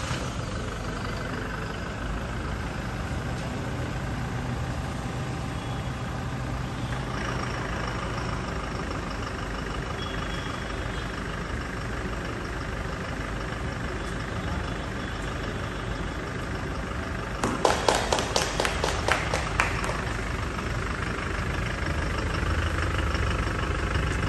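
Toyota Innova Crysta 2.4's four-cylinder turbo-diesel engine idling steadily. About two-thirds of the way through, a quick run of about a dozen sharp cracks over two seconds stands out as the loudest sound.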